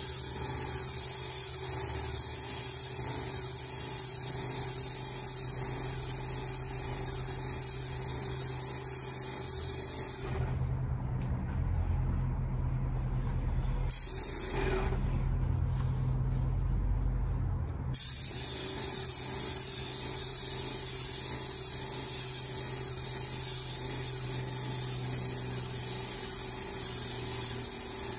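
Airless paint sprayer gun spraying with a steady loud hiss. The hiss cuts off about ten seconds in, gives one short burst a few seconds later, then resumes about eighteen seconds in, over a steady low hum from the sprayer's pump.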